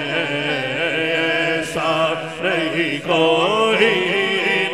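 A man singing an unaccompanied Urdu naat, drawing out long wavering notes of the refrain, with a steady low drone underneath.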